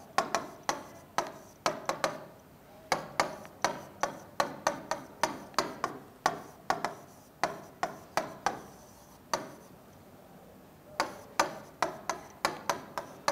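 Stylus tip tapping and clicking on the glass of an interactive smartboard while writing: sharp, irregular clicks about two a second, with a short pause about two-thirds of the way through.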